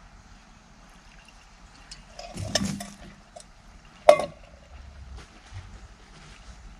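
Camp coffee gear being handled: a short scrape and rustle about two and a half seconds in, then a single ringing metal clink a little after four seconds.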